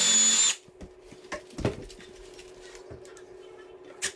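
Cordless drill/driver running a screw into the wooden chair frame, its motor whine stopping suddenly about half a second in. Light knocks and clicks from handling the drill and the wood follow, with a sharp click near the end.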